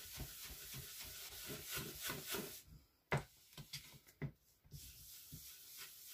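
Sponge-tipped ink blending brush rubbing on cardstock in quick, repeated strokes for about two and a half seconds. Then comes a sharp click and a few lighter taps as the brush is dabbed in the ink pad's plastic case.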